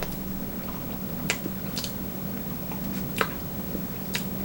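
Close-miked chewing of sushi: a few scattered wet mouth clicks and smacks over a steady low hum.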